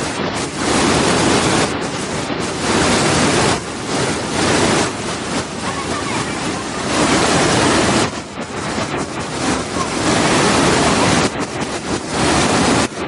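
Waterfall rushing: a steady wash of water noise that swells and eases every second or two.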